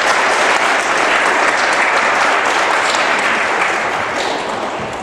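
Audience applauding, the clapping slowly dying away over the last couple of seconds.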